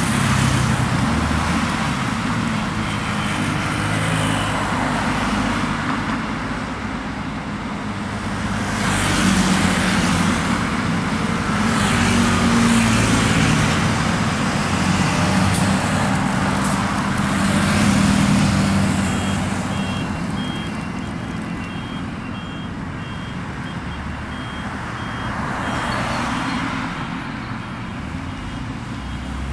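Busy road traffic: cars, scooters and city buses passing in waves over a steady low engine hum. From about two-thirds of the way in, a vehicle's electronic warning beep repeats at an even rate.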